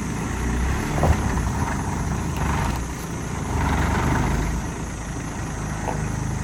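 Engine of the vehicle that arrives to collect the group, running steadily with a low hum.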